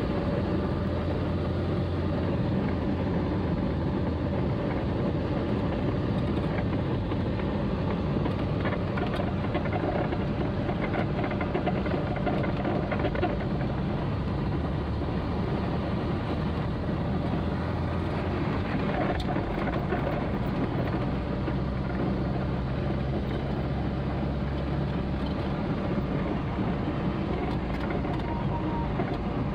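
Inside a Volkswagen Gol driving on a wet road: steady engine hum under continuous road noise from the tyres on wet tarmac.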